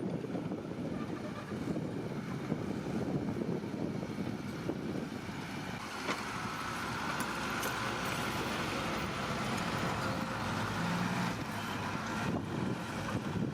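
Heavy diesel earthmoving machinery running and working with a steady rumble; a high whine joins for a few seconds in the middle.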